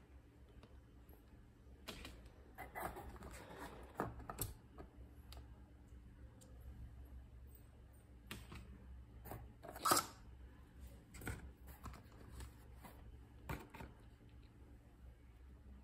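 Light plastic clicks and crinkles as the lid is taken off a round plastic takeaway container and the containers are handled, with a rustly stretch early on and the sharpest click about ten seconds in.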